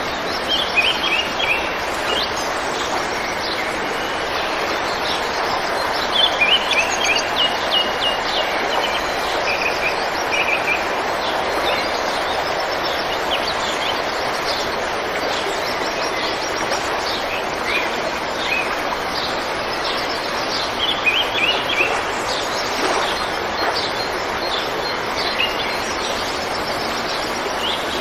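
River water flowing with a steady rush, while birds chirp in short bursts every few seconds.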